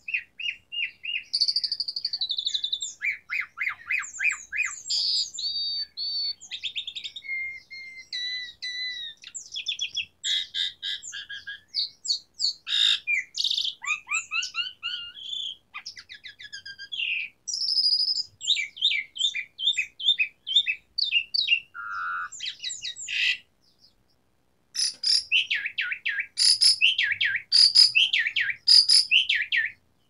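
Asian pied starling singing a long, varied song of rapid trills, whistles and chattering notes, with a brief pause about three-quarters of the way through.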